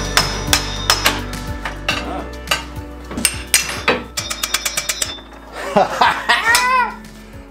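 Background music over a homemade tube bender at work: sharp metallic clicks and clanks, with a quick run of clicks about three and a half seconds in, as a 1.5-inch steel tube is bent round the die.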